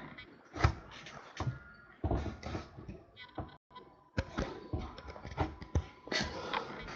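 Trading cards being handled: a scattering of soft taps, clicks and brief rustles as cards are shuffled and set down.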